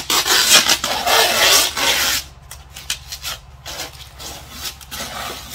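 Green packing tape being peeled off a white styrofoam box: a loud rasping rip for about the first two seconds, then quieter scrapes and rustles as the tape and lid are handled.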